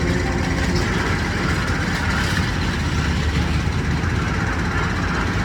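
Hrubetz Hurricane carnival ride running, a steady low mechanical rumble of its drive machinery.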